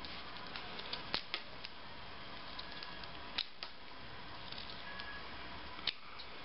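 Utility knife blade shaving a small wooden arrow tip: a faint scraping hiss broken by a few sharp clicks as the blade catches the wood, the loudest about a second, three and a half seconds and six seconds in.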